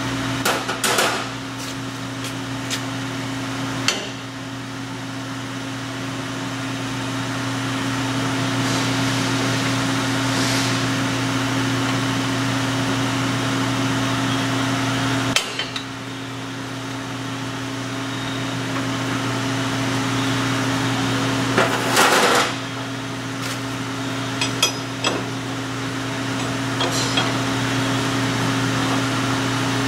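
Metal clanks and clinks from saw-arbor parts being handled and fitted by hand, the loudest clatter about 22 seconds in. Under them runs a steady machine hum with a low tone and a higher one above it.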